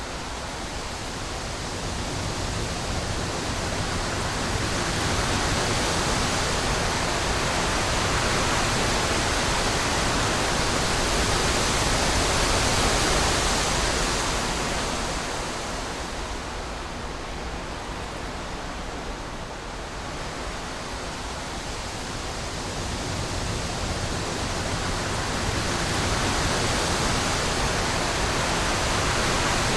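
Strong wind gusting through trees: a steady rushing that swells to a peak about twelve seconds in, eases off around twenty seconds, then builds again near the end.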